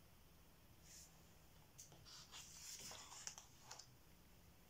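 Faint paper rustles and soft taps of a picture-book page being turned and pressed flat, otherwise near silence.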